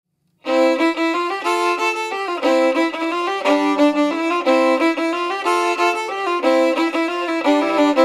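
Fiddle playing a tune in quick, changing notes, starting about half a second in.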